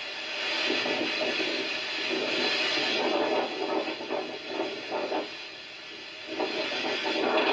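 Storm wind and heavy rain from hurricane footage, played back through computer speakers. It runs as a steady rushing noise that swells and eases in gusts, dropping back about six seconds in before rising again.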